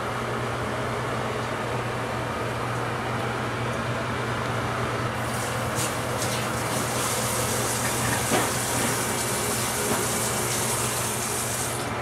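A steady low hum with background noise; about five seconds in, a higher hiss like running water starts and goes on until near the end, with a few light clicks.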